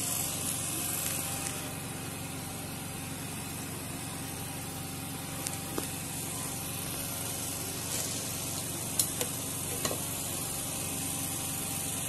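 Steady background hiss with a low hum underneath, and a few light knocks and clicks in the second half, the loudest about nine seconds in.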